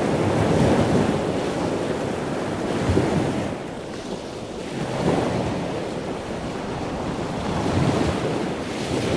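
Continuous rushing noise that swells and eases in slow surges, dipping quieter about four seconds in.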